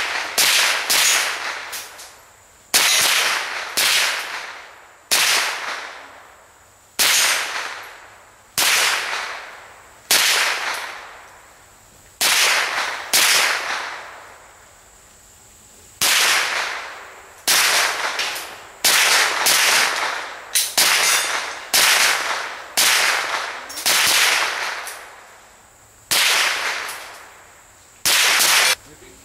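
Rifle shots fired one after another, about one a second and sometimes two in quick succession. Each is a sharp crack that trails off over about a second.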